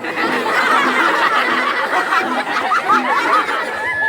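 Audience laughing: many voices chuckling and laughing over one another, mixed with some chatter.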